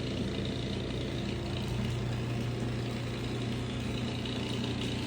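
Electric garage door opener running, its motor humming steadily as it moves the door along the track.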